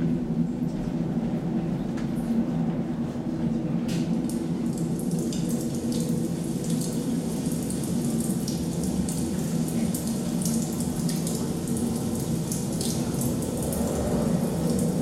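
Steady low droning sound with scattered soft clicks and crackles over it, the ambient accompaniment to a stage dance piece.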